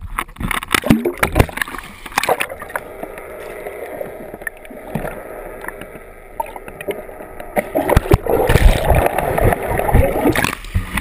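Sea water slapping and splashing against a waterproof camera housing held at the surface, with sharp knocks at first, then going muffled and dull as the camera goes underwater. Louder churning water noise with low thumps comes near the end.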